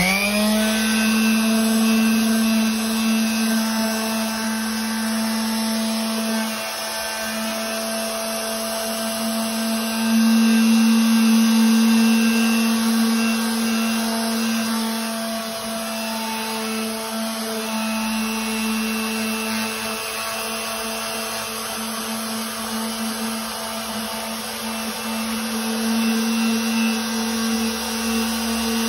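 Electric orbital sander with 60-grit paper spinning up and then running steadily with a high hum, sanding a freshly trimmed rubber pool table cushion flush to its line. Its level swells and eases a little as it is worked over the rubber.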